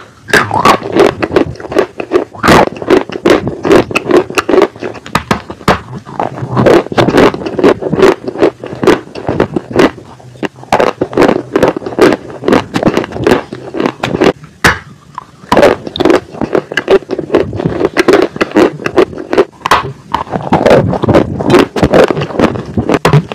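Dry Turkestan white clay bitten and chewed close to the microphone: a dense run of sharp, dry crunches and crackles with a few brief pauses.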